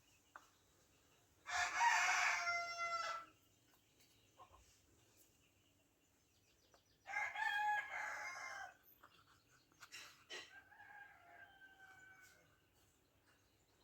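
Rooster crowing twice, each crow under two seconds long and dropping in pitch at its end, followed by a fainter, shorter call near the end.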